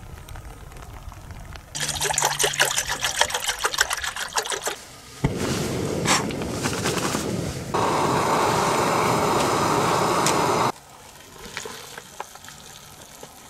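A backpacking canister stove burning with a steady hiss, in two stretches, the second louder, each cutting off abruptly. Before it come a few seconds of dense crackling. Near the end, quieter sounds of hot water being poured into a freeze-dried meal pouch.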